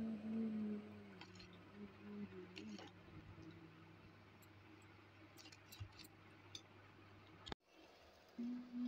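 Faint scattered clicks of a steel spoon against a steel bowl as thick gram-flour batter is stirred, over a steady low hum. A low steady tone sounds through the first three seconds.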